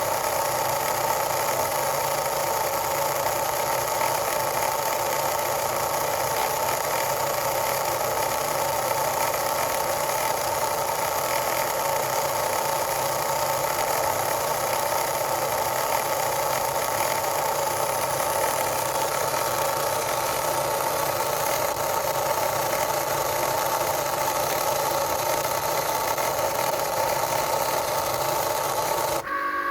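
Cricut Explore Air 2 cutting machine making a steady grinding noise. Shortly before the end it changes abruptly to a cleaner motor whine.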